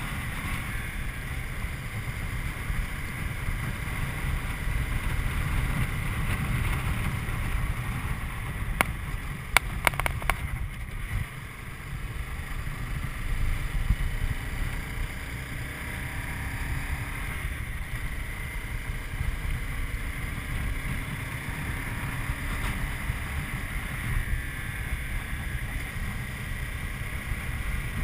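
Honda CBR250R's single-cylinder engine running at road speed, largely buried under wind rushing over the camera microphone. A few sharp clicks come about nine to ten seconds in.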